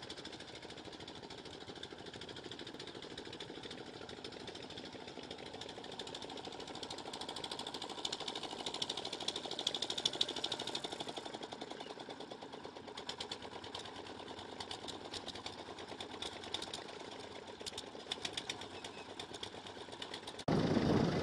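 Boat engine running steadily with a rapid, even knocking beat, loudest about halfway through.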